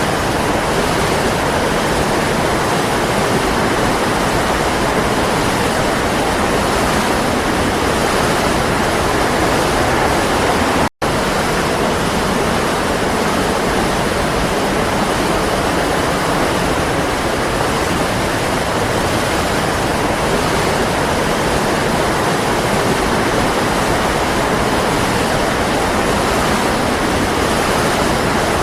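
Waterfall: a steady, loud rush of falling water, cut by a split-second dropout to silence about eleven seconds in.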